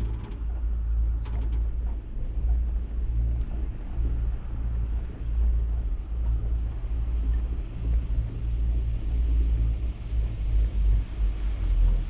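Wind buffeting the microphone: a low, uneven rumble, with a few faint clicks in the first two seconds.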